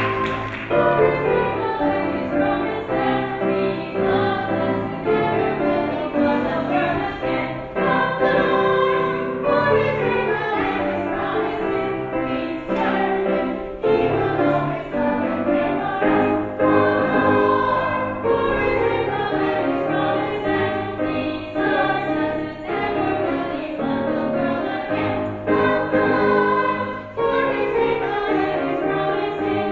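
Children's choir singing a song from a children's cantata.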